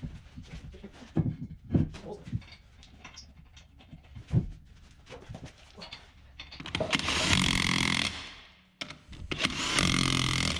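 Scattered clicks and knocks, then a power tool running loudly in two bursts of about two seconds each, the second starting about nine seconds in.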